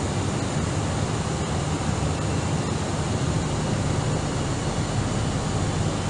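Steady cabin noise of an Airbus A319 in flight on approach: an even low rumble of engines and airflow with a constant hiss above it and a faint thin high whine.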